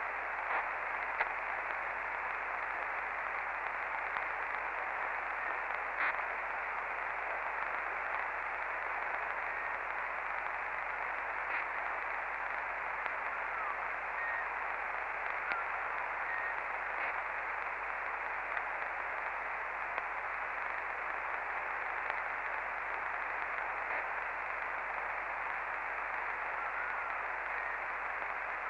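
CB radio receiver on the 11-metre band putting out steady static hiss with no signal on the channel. The hiss is narrow and radio-like, with a few faint clicks and a couple of very short high beeps.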